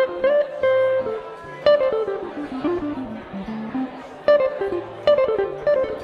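Archtop guitar playing an instrumental passage of single picked notes: a falling run about two seconds in, then repeated higher notes.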